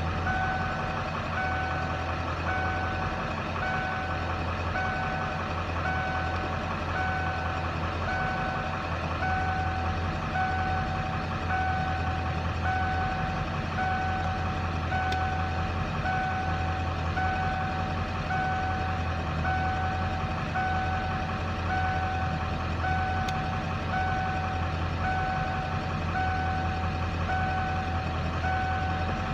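Ford 7.3 IDI V8 diesel idling, which the owner calls a rough idle. A short electronic warning beep repeats about once a second over it.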